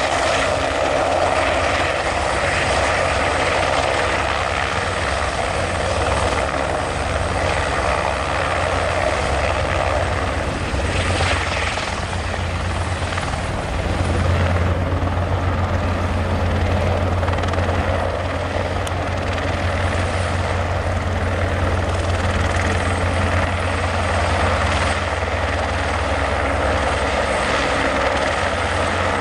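Airbus AS350B3 single-engine turboshaft helicopter hovering low: steady rotor and turbine noise, growing a little louder about halfway through.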